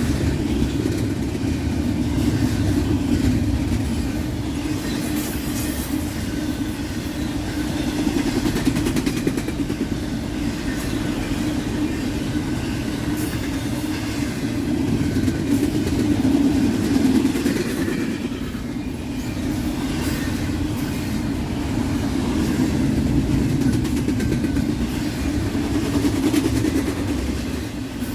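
Intermodal freight train rolling past, its cars' steel wheels running on the rails in a steady rush that swells and eases every few seconds.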